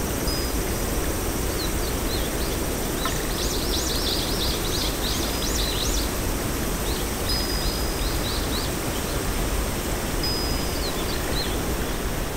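Outdoor nature ambience: a steady rushing background noise with birds chirping over it. The birds give short high whistles and quick rising chirps in bursts, densest from about three to six seconds in.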